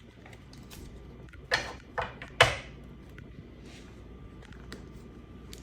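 Baseball trading cards being handled, with three short sliding, rustling sounds between about one and a half and two and a half seconds in.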